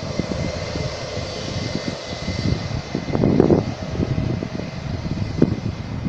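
Twin-engine jet airliner's engines running for takeoff as it rolls away down the runway: a distant uneven rumble with a faint steady whine.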